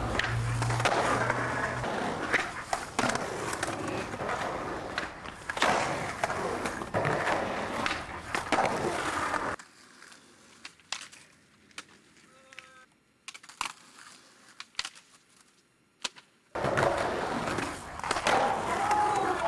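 Skateboard wheels rolling hard on concrete, broken by sharp clacks of the board snapping and landing. Around the middle the rolling drops away for several seconds, leaving only a few scattered clicks, then comes back loud near the end.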